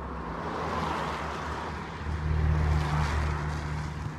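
Cars passing on a wet road: tyre hiss that swells about a second in and again about three seconds in, over a low steady rumble.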